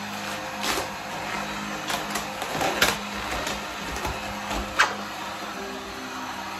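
Corded heat gun blowing steadily on vinyl wrap film while the film is pulled and stretched, with several sharp crackles from the film, the loudest about three and five seconds in. Music plays underneath.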